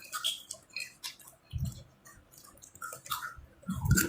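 Close-miked wet chewing and mouth clicks of someone eating spicy macaroni snack, with two low thuds, one about a second and a half in and one near the end.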